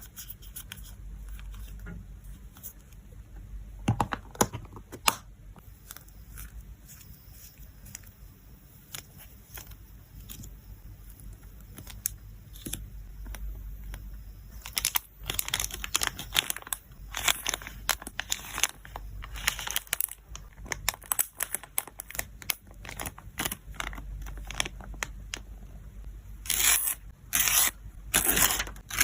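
Close-up handling of photocards and plastic packaging: light taps, scrapes and rustles, with louder stretches of crackling, tearing and crinkling about halfway through and again near the end.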